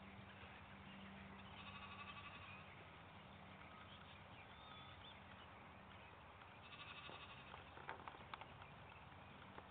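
Faint, distant bleating of livestock: two quavering calls, one about two seconds in and another about seven seconds in, over a low steady hum. A few light clicks near the end.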